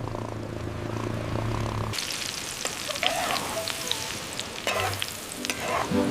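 A steady low hum, then from about two seconds in, food sizzling in a hot pan with small crackles.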